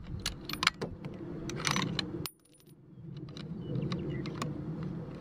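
Bolt-action .243 Winchester rifle being handled and loaded: a series of sharp metallic clicks and clinks as the bolt is worked, with a brief high metallic ring a little past two seconds in. No shot is fired.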